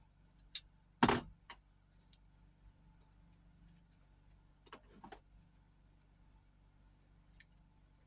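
A few scattered sharp clicks and short scuffs of hands handling materials, the loudest about a second in, with quiet between.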